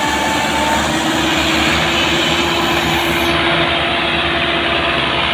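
Massey Ferguson 385 tractor's four-cylinder diesel engine running hard and steady, with a fast low pulse, as it pulls a heavily loaded sugarcane trolley on a chain.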